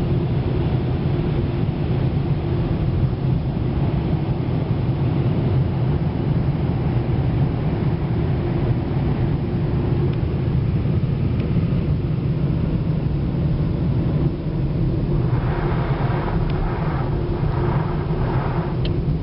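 Steady low rumble inside a car's cabin as it rolls slowly out of a car wash bay and onto the lot, with an even hum under it. A few brief, hissier sounds come in near the end.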